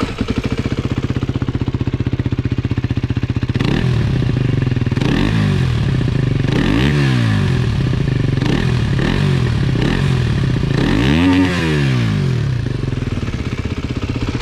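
Aprilia SX 125's single-cylinder four-stroke engine through an Arrow slip-on exhaust and racing header, idling steadily, then revved repeatedly from about four seconds in. Each rev rises and falls in pitch and drops back toward idle, and the engine settles to a steady idle near the end.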